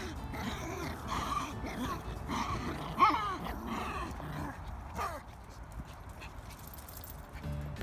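Maltese dogs playing tug-of-war with a leash, making a run of short whining, yipping play noises. The loudest is about three seconds in, and they die away after about five seconds.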